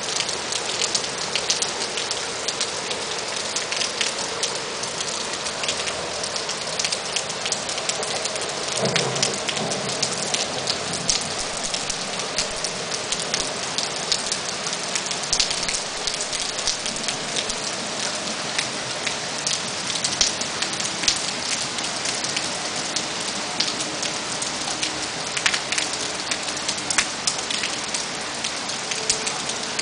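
Steady rain falling on trees and garden foliage, a dense hiss with many individual drops ticking close by. There is a short low swell about nine seconds in.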